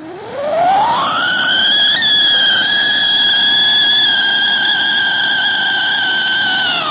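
Cock Brand siren anaar, a fountain firework, whistling like a siren. A shrill tone rises steeply over about the first two seconds, then holds steady over the hiss of the spraying sparks, and starts to drop right at the end.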